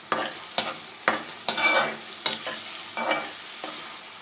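Onions sizzling in hot oil in a pan as they are stirred to brown them for a masala base. A utensil scrapes and taps against the pan about every half second, with one longer scrape near the middle.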